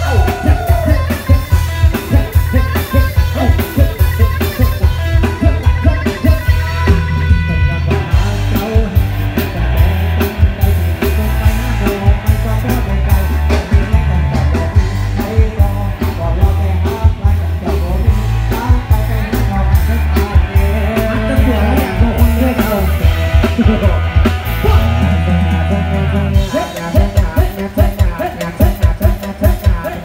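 Live band playing loud amplified music through a rot hae sound truck's speaker stacks: drum kit, electric guitars and heavy bass, with a sung melody over it. The bass drops out briefly near the end while the drums carry on.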